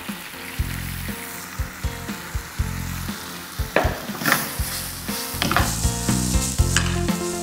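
Spaghetti, garlic and Japanese yanagi mushrooms sizzling steadily in a frying pan of hot butter and olive oil. From about four seconds in the pan is tossed and stirred, adding sharp clattering and scraping strokes over the sizzle.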